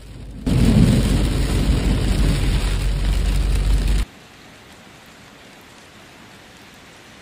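Heavy rain pounding on a car, heard from inside the car as it drives, loud with a deep rumble. It cuts off suddenly about four seconds in, leaving a faint steady hiss.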